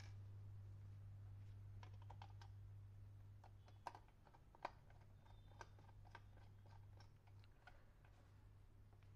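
Faint, scattered clicks and taps of a screwdriver and the plastic housing of an electric iron being handled during reassembly, with two sharper clicks near the middle, over a steady low hum.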